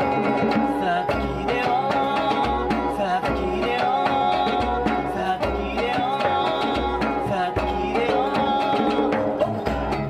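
Live acoustic band music: acoustic guitar and hand drums (djembe and cajón) keeping a steady low beat under a wavering, vibrato-rich lead melody.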